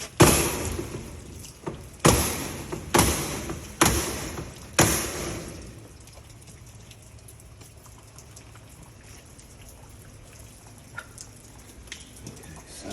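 Five sharp knocks about a second apart, each trailing off in a short noisy hiss or rattle, then only faint ticking.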